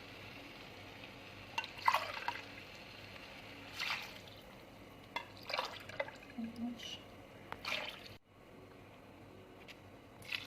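Hot water poured from a glass into a pan of rice in a tomato and spice base, heard as several short separate pours and splashes.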